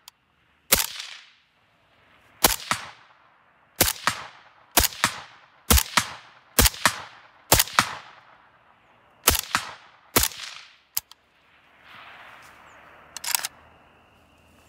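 Suppressed rifle shots from an AK-pattern rifle, about ten at uneven spacing of roughly one to two seconds, each followed by a short echo.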